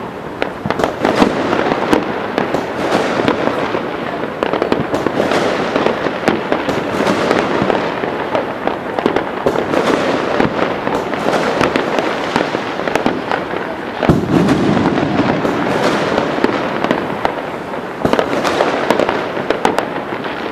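A dense, continuous barrage of aerial fireworks: many overlapping bangs and crackles with no break, from a high-density display firing about 148 shells a second. A stronger, fuller burst comes about 14 seconds in.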